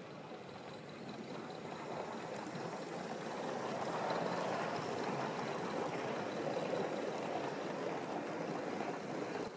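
Gauge 1 live-steam model locomotive hauling its train of wagons and carriages past close by: a steady rushing of steam and wheels on rail that grows louder from about two seconds in as the train draws level.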